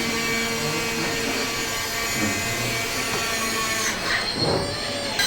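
A small motor runs steadily with a high whine, then cuts off about four seconds in.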